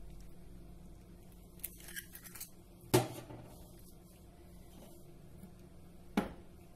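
Light clicks, then a sharp knock about three seconds in and another near the end: small kitchen items being handled and set down on a hard surface.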